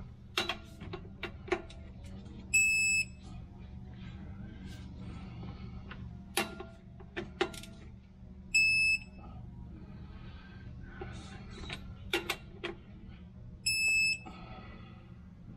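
Digital torque wrench beeping three times, a high half-second tone roughly every six seconds, each beep signalling that a flywheel bolt has reached the 92 ft-lb set torque of the first pass. Sharp clicks of the wrench and socket fall between the beeps.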